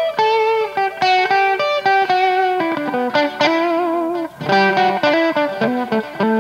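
Les Paul electric guitar with humbucker pickups played through an Audio Baron TG-30 30-watt amp on its crunch setting: a lightly overdriven melodic line of picked single notes and double-stops, with a short break about four seconds in.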